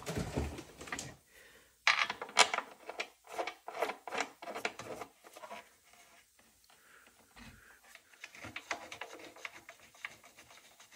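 Plastic overhead speaker console scraping, rubbing and clicking against a UTV's steel roof as it is pushed into place and its bolts are threaded on by hand. A cluster of scrapes and clicks comes about two to five seconds in, with fainter scraping near the end.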